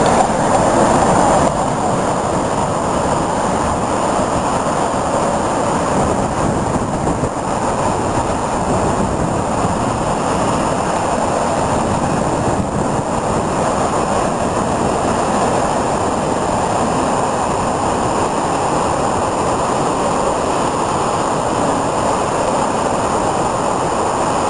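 Rough sea: a steady roar of waves breaking on rocks and breakwater blocks, mixed with wind, a little louder in the first second or two.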